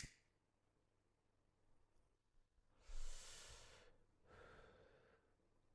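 A man exhales a long, heavy sigh close to the microphone about three seconds in, then takes a softer breath. There is a sharp click at the very start.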